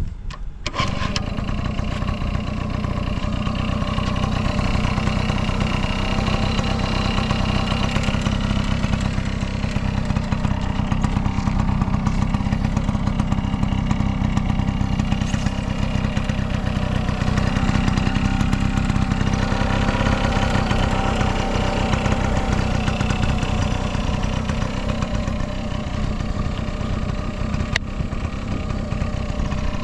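Yamaha Passol D S50D moped's small air-cooled two-stroke single-cylinder engine running steadily, which the seller describes as free of abnormal noises.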